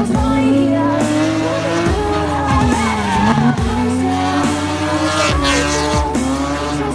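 A car drifting: its engine revving, dipping about three seconds in and climbing again, with the tyres squealing and skidding as it slides sideways.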